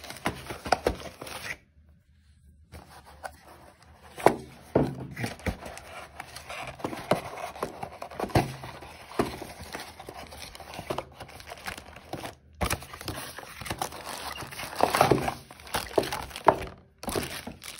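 Retail box packaging being opened and handled by hand: irregular crinkling and tearing of paper and plastic, with scattered knocks and taps against the box. The sound cuts out briefly a few times.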